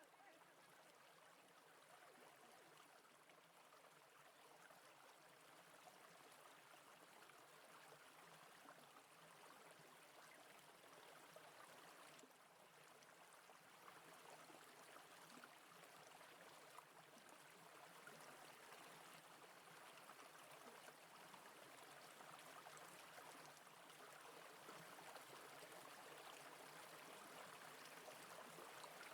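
Faint, steady rush of a small mountain brook, its water running over rocks, growing slightly louder over the stretch.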